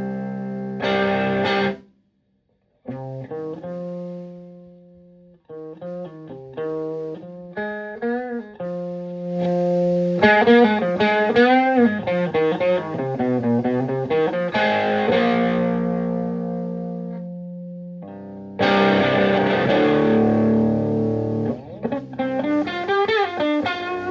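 Electric guitar (Stratocaster) played through a Höfner germanium preamp pedal into a Fender Twin Reverb–style amp, with a light overdriven tone. Chords ring out, then stop briefly. Single-note lines with vibrato and string bends follow, and another chord rings near the end, followed by more bent notes.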